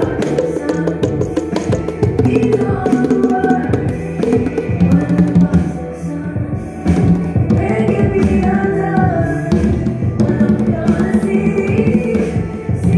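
A set of four conga drums played by hand, over a recorded R&B song with a woman singing and a steady bass line.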